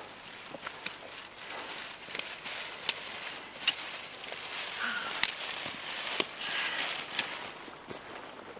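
Footsteps crunching on a stony gravel trail, with sharp clicks of trekking-pole tips striking stones and the rustle of a plastic rain poncho, growing louder as the walker comes near and dropping away near the end.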